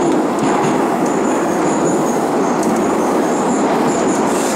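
Metro train running through a tunnel, heard from inside the carriage: a loud steady rumble with a thin high wheel squeal coming and going.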